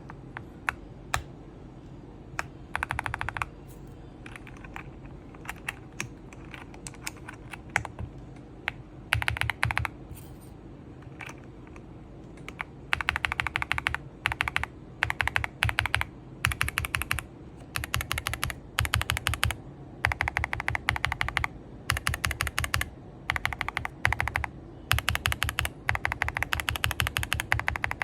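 Aula F108 mechanical keyboard fitted with Akko MonsGeek Green Fog 60g switches being typed on: scattered single keystrokes and short runs for the first dozen seconds, then fast bursts of typing, each about a second long with short pauses between.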